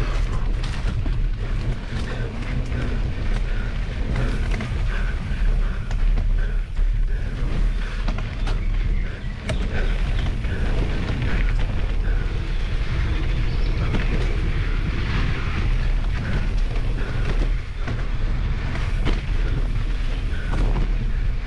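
Mountain bike riding over a dirt forest singletrack, heard from a camera on the bike or rider: a steady low rumble of wind buffeting the microphone, broken by frequent clicks and knocks as the bike rattles over bumps.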